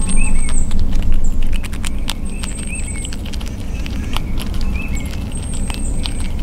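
Grey squirrel gnawing and cracking a peanut close to the microphone: quick, irregular clicks and crunches. A thin high chirp repeats three times, over a steady low rumble.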